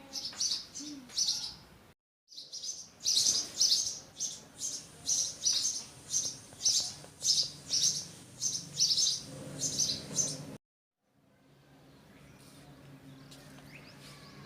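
Small birds chirping, a run of sharp high chirps at about two a second that stops about ten and a half seconds in. A faint low steady hum follows.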